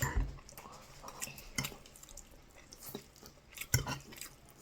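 Cutlery clinking against plates as people eat, a few scattered clicks and knocks.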